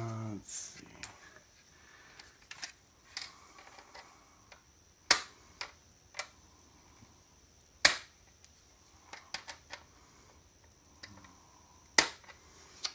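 Sharp clicks and knocks of hand tools and the plastic and metal parts of an electronic device being pried and worked on during disassembly, with three louder snaps spread through and lighter taps in between.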